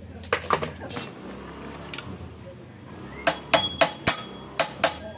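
Sharp metallic clinks and knocks of hand tools against the scooter's metal engine parts and bolts during disassembly. A few come near the start, then a quick run of about six in the last two seconds, one leaving a brief ring.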